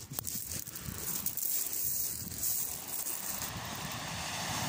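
Wind rumbling unevenly on the microphone, over the steady hiss of surf breaking on the shore.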